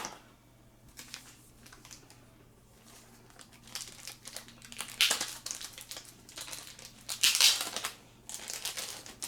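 Plastic packaging crinkling and rustling as it is handled, in irregular crackles, loudest about five seconds in and again around seven and a half seconds.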